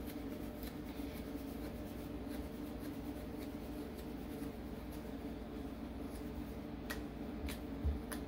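Thinning shears snipping through matted ear fur: faint, irregular little clicks, a few sharper ones near the end, over a steady low hum.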